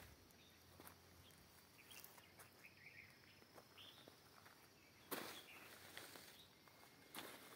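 Near silence: faint outdoor ambience with a few faint short bird chirps, and soft rustles about five seconds in and again near the end.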